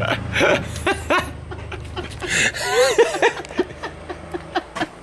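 A woman laughing and giggling in short bouts, with no words.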